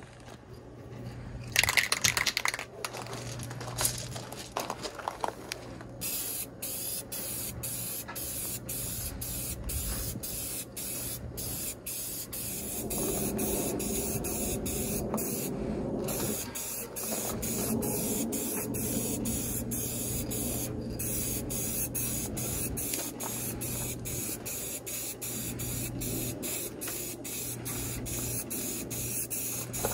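Aerosol spray paint can spraying in long steady hisses, laying down a first coat of paint. A few short knocks come in the first seconds before the spraying starts.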